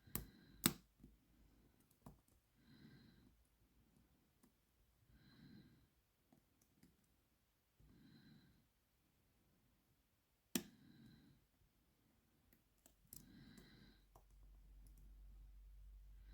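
Quiet, sharp clicks of lock picks and a tension wrench working inside a padlock: two near the start and one about ten seconds in. Soft breathing comes about every three seconds in between.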